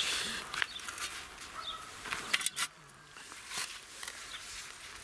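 Spade digging into garden soil: a few sharp scraping strikes, the blade catching on a tree root in the hole.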